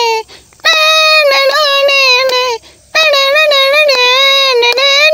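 A man's voice imitating a harmonium, a sustained reedy tone that bends up and down through a melody, while sharp percussive clicks keep time like dholak beats. The melody breaks off twice briefly, once just after the start and once near the middle.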